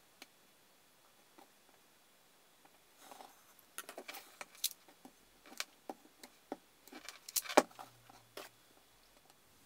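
Light, irregular clicks and taps of small wooden craft sticks being handled and set down on a wooden workbench, starting about three seconds in, with one sharper click near the end.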